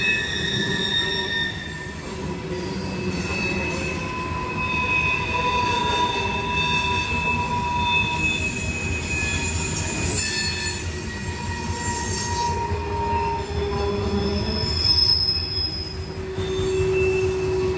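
Freight train cars rolling past, their wheels squealing in several high, shifting tones over a steady low rumble.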